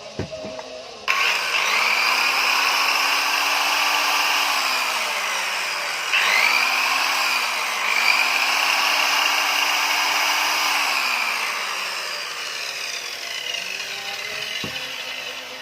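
Electric power tool motor switched on, running free at speed with a high whine, its speed dipping and picking up again twice midway, then winding down slowly near the end.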